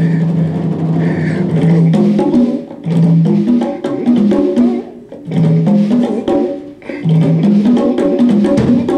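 Congas played by hand in a fast, busy rhythm: quick slaps and open tones at several pitches that step from drum to drum, with short breaks about two and a half, five and nearly seven seconds in.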